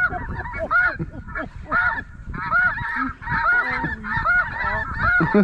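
Geese calling: many short, high honks overlapping in a continuous flock chatter.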